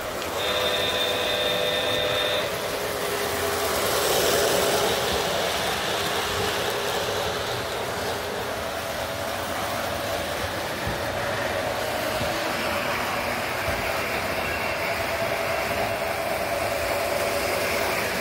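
Lionel model trains running on the track, a steady rolling clatter of wheels and motors. It opens with the locomotive's sound-system whistle, a steady chord that sounds for about two seconds and then stops.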